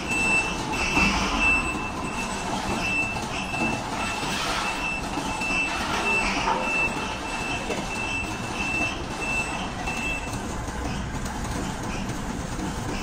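Forklift's reversing alarm beeping about twice a second, then stopping about ten seconds in, with the forklift's engine running underneath.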